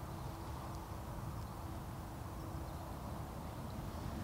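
Quiet outdoor background: a steady low rumble with a faint steady hum, and no distinct event.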